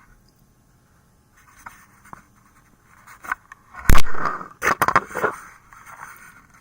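Camera handling noise: scraping and clacks as the camera is repositioned, with one loud knock about four seconds in.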